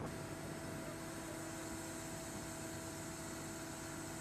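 Steady machinery hum of running equipment on the construction tender, with two held tones and a faint hiss over it; no hammer blows.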